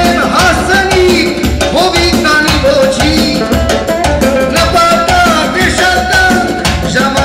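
A man singing live into a microphone through a PA, his voice wavering and ornamented, over electronic keyboard accompaniment with a steady beat.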